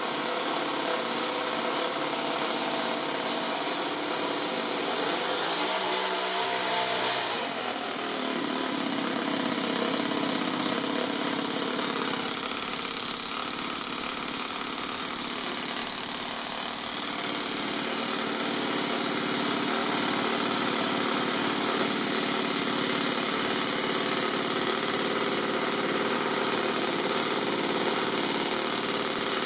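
Toyan FS-S100 single-cylinder, single-overhead-cam four-stroke nitro model engine running in an RC crawler. Its sound changes about seven seconds in and again about twelve seconds in.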